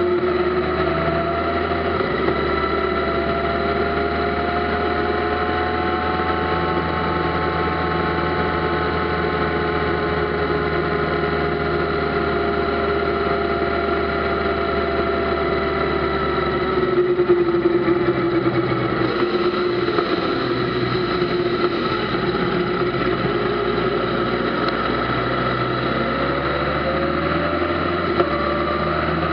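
Kawasaki ZZR1400's inline-four engine running at steady cruising revs. About two-thirds of the way in the throttle eases and the engine note drops, then rises again near the end as it pulls.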